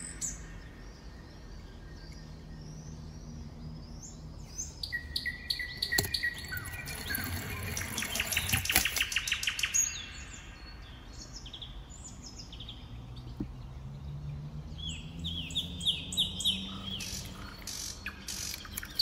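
Small birds chirping and twittering throughout. In the middle, a few seconds of crinkling from crumpled metallic foil being rummaged by hand.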